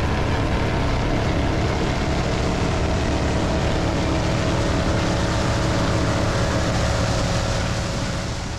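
A 29-foot Baja Outlaw performance boat's engine running hard at speed: a loud, steady drone over a rushing noise, fading away near the end.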